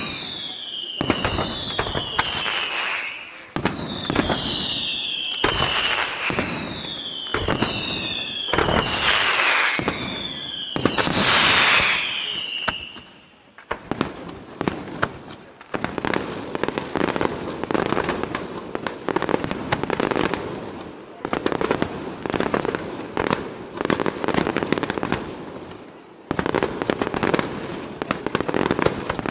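Aerial fireworks display. For the first dozen seconds, falling whistles come one every second or two over shell bursts. Then a dense, rapid barrage of bangs and crackling follows.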